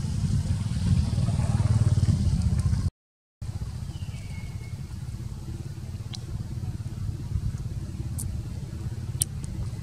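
Steady low outdoor rumble, cut by a brief dropout to silence about three seconds in. A short falling chirp comes about a second after the dropout, and a few sharp high ticks follow later.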